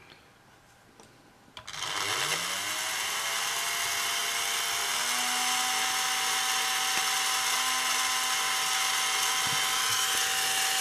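Small electric motor of a Märklin 3048 model steam locomotive starting about one and a half seconds in. Its whine rises in pitch as it spins up and then runs steadily.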